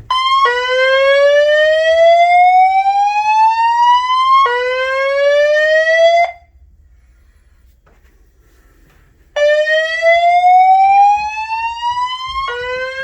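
Fire-Lite FireCommand 25/50X voice evacuation system sounding its alert tone through the fire alarm speakers. It is a slow rising whoop: a sweep climbs for about four seconds, a second shorter sweep is cut off, and after a pause of about three seconds the pattern repeats. This is the evacuation signal that comes before the spoken fire message.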